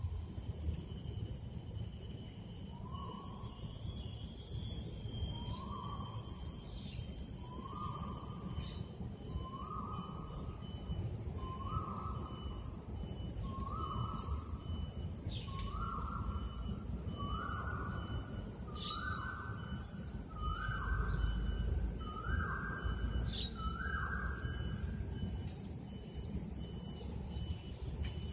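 An animal's short call repeated about every two seconds, a dozen times, each a little higher in pitch than the last. It sits over a steady low rumble and a faint, evenly pulsing high tone.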